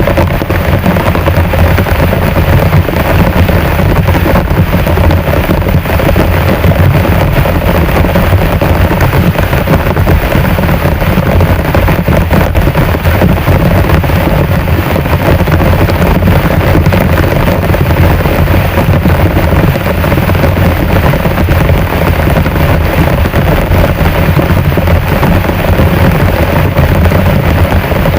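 Heavy rain pouring steadily, a dense even hiss with a strong low rumble underneath.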